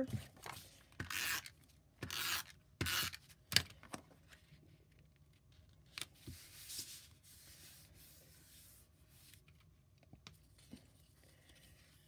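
Paper rustling and rubbing as a sheet of patterned paper is slid into place on a cardstock card base and smoothed down by hand: several quick swishes in the first four seconds with a sharp tap, then fainter rubbing and small clicks.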